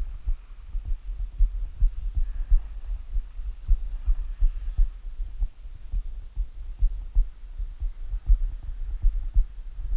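Wind buffeting the action camera's microphone: an uneven run of low rumbles and thumps, several a second.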